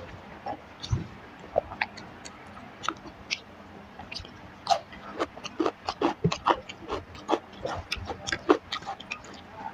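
A person chewing food with wet mouth clicks and smacks, sparse at first and coming thick and fast from about halfway through.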